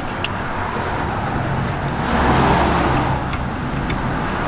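A motor vehicle engine running nearby, a steady low hum that grows louder about two seconds in and eases off again. A few light clicks come from a plastic electrical connector being handled.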